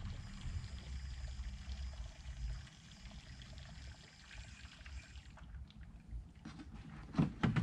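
Coolant being sucked through the hose of a vacuum coolant filler into a cooling system held under vacuum, a steady rushing flow that stops about five seconds in as the fill valve is shut. A few knocks near the end.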